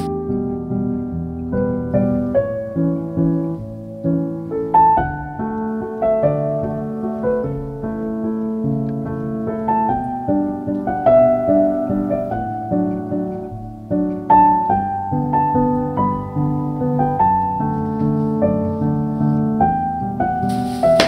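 Background music: a gentle solo piano piece, a melody of single notes over held chords.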